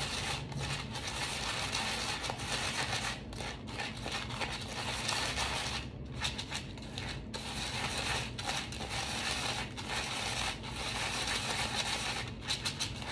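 Plastic EVA aroma beads being mixed with gold colouring powder: a continuous, irregular scraping and rattling of many small beads, with a few brief pauses.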